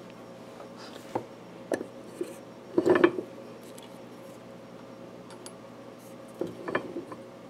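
Alnico 5 magnet rods clicking and clinking against a steel jig as they are set one by one into a Telecaster pickup bobbin. There are a few sharp clicks, the loudest cluster about three seconds in and another near the end.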